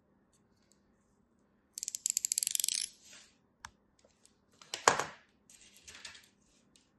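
Snap-off utility knife's blade slider ratcheting: a quick run of sharp clicks about two seconds in. Then hands press into kinetic sand, with a louder crunch near five seconds followed by soft, crumbly rustling.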